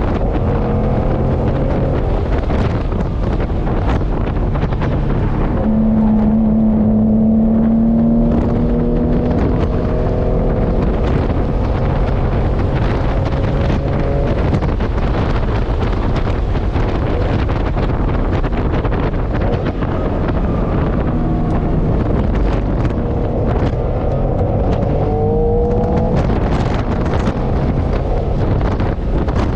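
Vintage sports car's engine running under load at track speed, heard from inside the cabin over steady wind and road noise. The engine pitch climbs slowly through a long pull in the first half, and rises again near the end.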